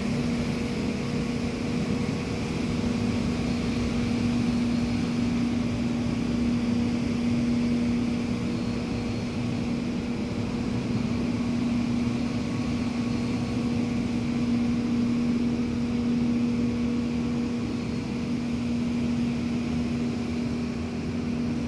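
Street sweeper truck running, a steady drone with a constant low hum.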